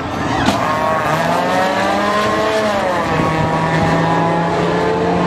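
A Smart Fortwo and a Ford Mustang launching off the line in a drag race, their engines revving hard. The engine notes climb in pitch and drop back at gear changes, about a second in and again near three seconds in.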